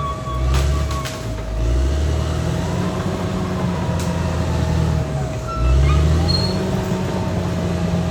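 Caterpillar D6R XL bulldozer's diesel engine working, its note dipping and then rising again twice as the load changes. A few short high squeals and sharp clicks sound over it.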